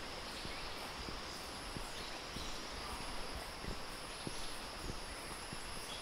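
Footsteps at a steady walking pace on a paved road, over a constant high-pitched insect drone, with a few faint bird chirps.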